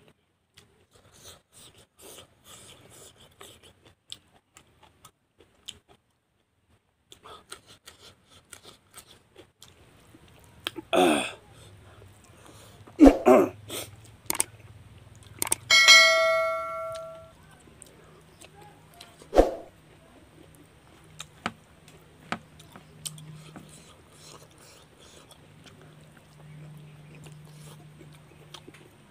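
Close-up eating sounds, soft chewing and lip smacks as a man eats rice and vegetables with his fingers, with several louder sharp knocks and clicks. About halfway through comes a single bell-like ding that rings out and fades, a subscribe-button sound effect.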